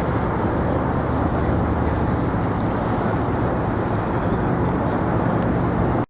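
A steady low engine drone under wind rumbling on the microphone, cutting off suddenly at the very end.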